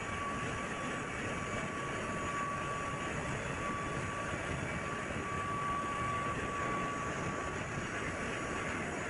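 Steady machinery noise of a container ship's engine room: an even drone with a thin, constant high whine over it.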